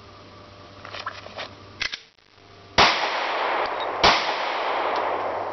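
A pistol is drawn from a holster with a brief rustle and clicks, then fired twice about a second and a quarter apart, each shot trailing off in a long echo.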